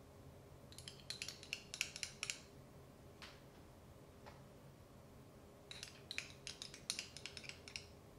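Two short runs of quick, light clicks and clinks, a few seconds apart, as a dollop of grated seasoning paste is added to raw liver in a glass bowl each time.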